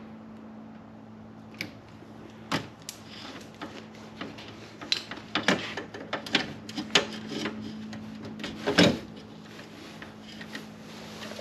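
Hand tools working on wires in an open breaker panel: irregular clicks, snaps and metallic taps, thickest in the second half and loudest about nine seconds in, over a steady low hum.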